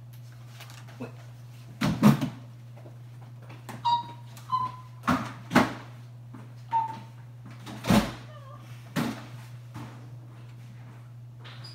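Offstage commotion: a series of thumps and bangs, with a few short animal-like squeals between them about four to seven seconds in.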